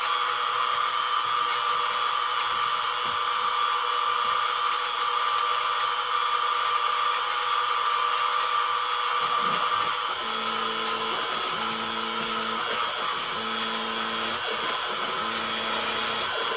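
CNC-converted mini mill running a peck-drill program with the spindle on, a steady mechanical whine. About ten seconds in the sound changes and a lower hum of several steady tones comes in as the axis motors slowly feed the drill into the wood.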